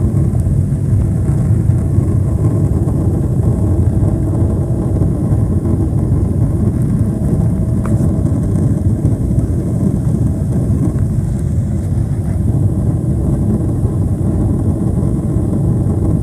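Cabin noise behind the wing of a Boeing 777-300ER during its initial climb after takeoff: the GE90-115B turbofans at climb thrust, a steady low sound that does not change.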